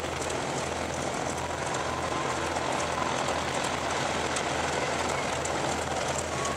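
The four Wright R-3350 eighteen-cylinder radial engines of the B-29A Superfortress 'Fifi' running steadily at low taxi power, a deep even drone with a rough propeller-and-exhaust rumble.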